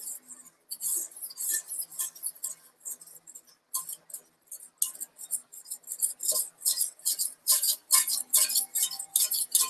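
Razor blade scraper scraping leftover body filler (Bondo) off a glass mixing board, many short rasping strokes, about three a second, getting louder in the last two seconds.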